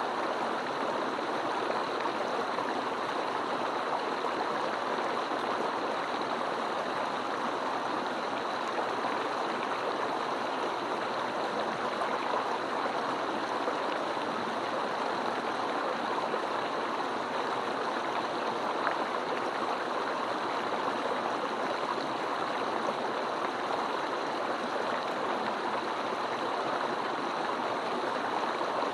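Mountain stream flowing, a steady, even rush of water with no breaks.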